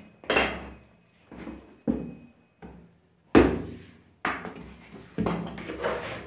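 A series of dull thumps and knocks as a soft bread dough is turned out of the mixing bowl and dropped and pressed onto the work board, the loudest a little past three seconds in.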